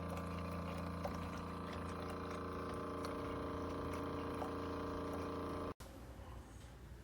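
Steady electric machine hum with several constant tones, cut off abruptly about six seconds in, then faint background noise.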